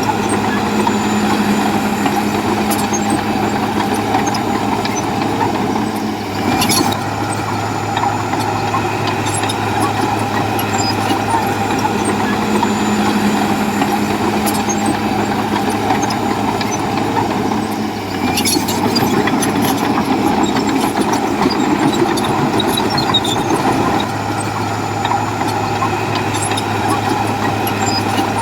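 Heavy diesel engine of an earthmoving machine running steadily under load, with two brief sharp sounds about six and a half and eighteen and a half seconds in.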